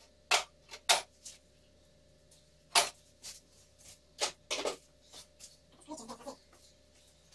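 Scattered sharp knocks and clinks of someone moving around and handling things on a concrete workshop floor, a handful of single strokes with the loudest about three seconds in, and a brief low murmur near the end.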